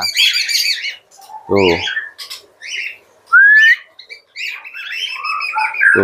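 Male budgerigar warbling and chirping in a long run of calls, with a loud rising whistle about three and a half seconds in. A long-lasting song like this marks the bird as a male; females tend to stay quiet.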